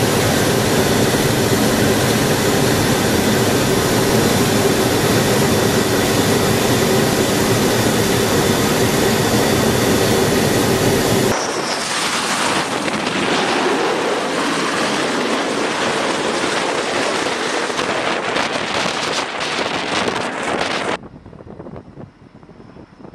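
Loud steady aircraft noise with a constant drone for about eleven seconds. Then an F/A-18F Super Hornet's twin jet engines during an arrested landing, their whine shifting in pitch. Near the end it drops suddenly to much quieter wind noise.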